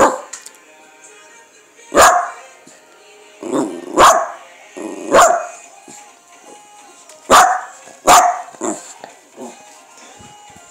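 Small shaggy dog barking sharply at its owner about six times, at irregular intervals of one to two seconds with softer yaps near the end: demand barking to be lifted onto her lap.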